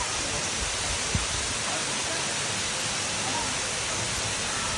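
Steady, unbroken rush of falling water, a waterfall or fast mountain stream.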